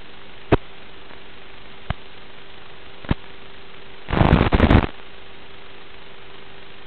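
Analog FPV video-link audio: a steady static hiss with a faint hum. Single sharp pops come at about half a second, two seconds and three seconds in, then a dense burst of crackling around four seconds in, the sign of the video signal breaking up as the drone flies low between the gravel piles.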